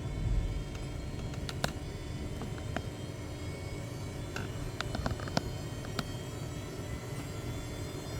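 Light clicks and knocks, several at irregular intervals, over a steady low background rumble: hand-held metal parts or tools being handled.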